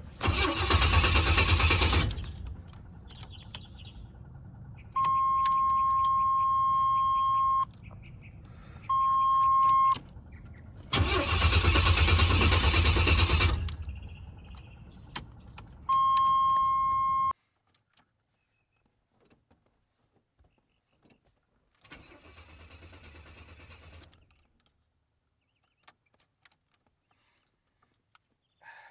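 Oldsmobile Cutlass Supreme engine cranking twice, each time for about two to three seconds, without catching: the stall and no-start persist after a new fuel filter. Between and after the tries, a steady electronic warning tone sounds in three spells, and a fainter burst follows near the end.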